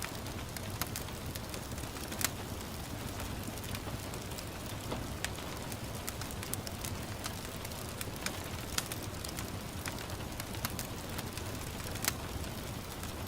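Wood fire crackling, with irregular sharp pops and snaps, over a steady hiss of gentle rain.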